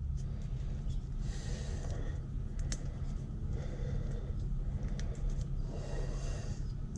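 Electrical tape being pulled off its roll and wrapped around a wire splice, in a few short crackly pulls with occasional light clicks, over a steady low hum.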